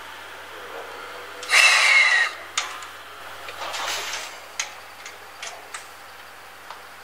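The C58 363 steam locomotive lets out a loud hiss lasting under a second, with a falling whistle-like tone in it. A few sharp metallic clicks follow, one at a time.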